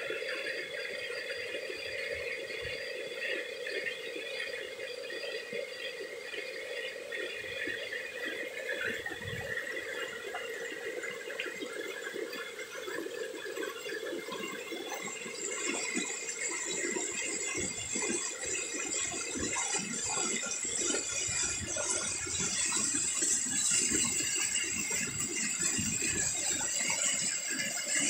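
Small mountain-stream cascade: water rushing and splashing over rock ledges, a steady rush that grows a little louder and hissier about halfway through.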